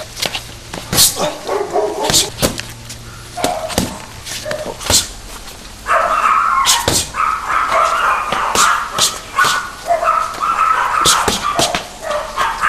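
Punches smacking into leather focus mitts in quick, irregular combinations of sharp slaps. From about halfway, a high whining sound comes and goes in drawn-out stretches over the strikes.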